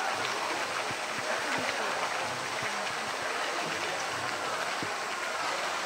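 Steady rush and lapping of pool water around a swimming polar bear, with a murmur of crowd voices behind it.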